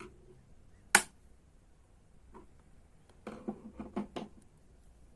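Plastic clicks and knocks as a flat-blade screwdriver pries a cover off an Oster clothes iron: one sharp snap about a second in, then a quick run of smaller clicks a couple of seconds later.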